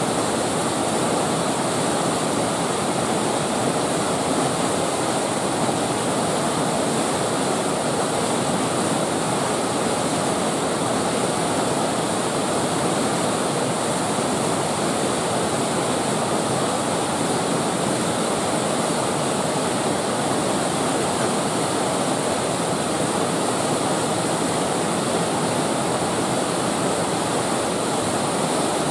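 Fast whitewater creek rushing over rocks, a steady, unbroken rush of water.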